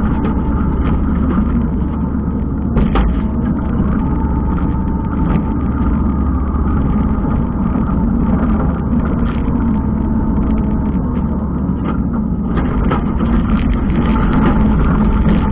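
Kubota skid steer's diesel engine running steadily while it works, with a few brief knocks.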